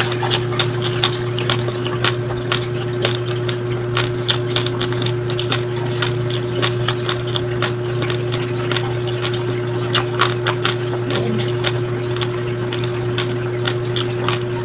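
Raw white rice grains crunching between the teeth as a person chews: a continuous run of many sharp, crisp crackles, over a steady low hum.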